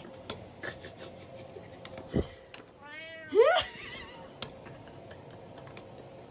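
A cat meows once about three seconds in, a loud call that rises sharply in pitch. A dull thump comes shortly before it, with a few faint clicks.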